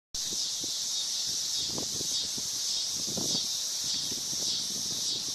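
Cicadas calling in the trees as a chorus: a steady, high-pitched buzz that never lets up.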